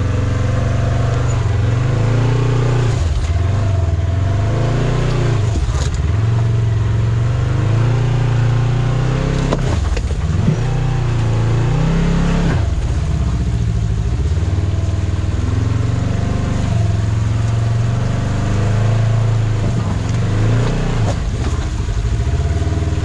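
Polaris RZR XP1000 side-by-side's engine revving up and down over and over under throttle, its pitch climbing and dropping back several times as it crawls up over rocks.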